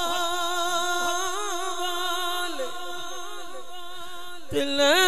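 A male singer holds a long, ornamented wordless note of a Punjabi Sufi kalam, sung through a microphone. Near the end he comes in louder with a new phrase.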